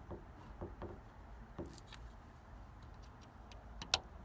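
Quiet handling noises as the wooden tongue depressor is worked into the sealant-filled gap in the door's vinyl cladding: a few soft taps in the first two seconds, then a single sharp click near the end.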